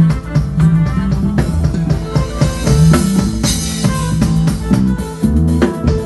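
Recorded music with a drum kit and a heavy bass line played loud through a line-array PA system, a sound check of the rig.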